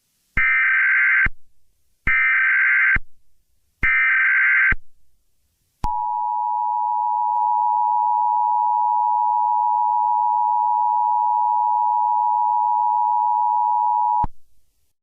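Emergency Alert System SAME header: three short bursts of data tones, each just under a second long. Then comes the steady two-tone EAS attention signal, held for about eight seconds before it cuts off.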